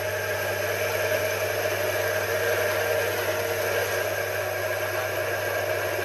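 Small bench metal lathe running at a steady speed: a constant motor hum with a steady higher whine, as a boring bar cuts inside the bore of a cast aluminium part spinning in the chuck.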